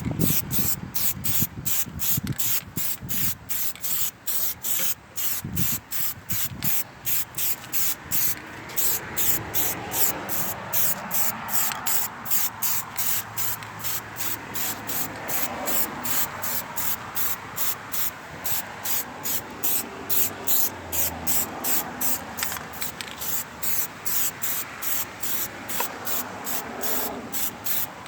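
Aerosol can of Plasti Dip spraying a coat onto a taillight lens. It makes a steady hiss that pulses about three times a second.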